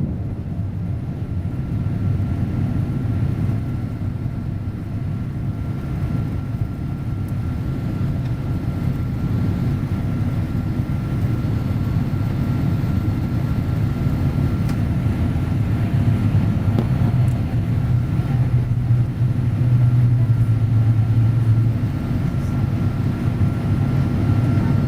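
Rolls-Royce Trent 1000 engines and airflow of a Boeing 787-8 during takeoff, heard inside the cabin: a steady low rumble with a faint steady whine, slowly getting a little louder.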